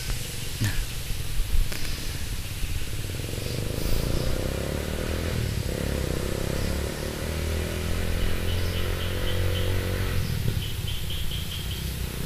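Outdoor background: a low motor rumble that swells in the middle, with two short runs of quick high chirps like a small bird's near the end.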